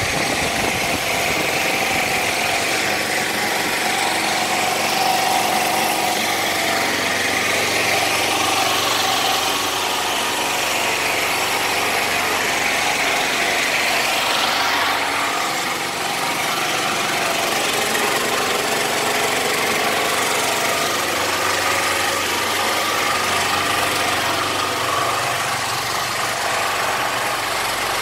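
A small engine running steadily, a constant mechanical drone that does not change for the whole stretch.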